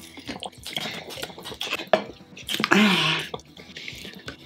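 Drinking water from a plastic bottle: small clicks from the mouth and the bottle, with a short breathy vocal sound about three seconds in.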